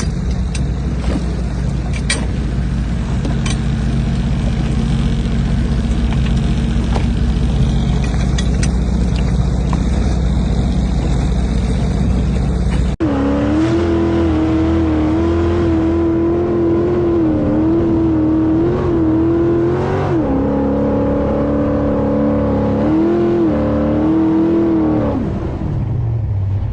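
Motorboat engine sounds. First a steady low rumble under a haze of wind and water noise. Then, after an abrupt cut about halfway through, an engine runs with a strong tone whose pitch rises and falls several times as it is throttled up and down, before settling lower near the end.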